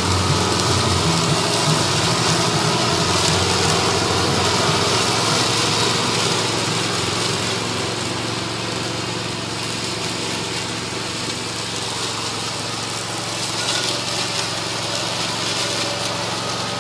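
Toro ZS4200T zero-turn riding mower running steadily under load, its deck cutting tall, waist-high meadow grass. It grows a little quieter about halfway through.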